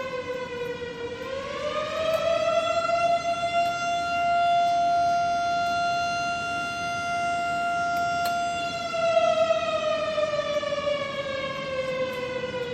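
Civil defense air raid siren wailing: its pitch dips, rises about a second or two in, holds one steady tone for about six seconds, then slowly slides back down near the end. It is loud and carries many overtones above the main tone.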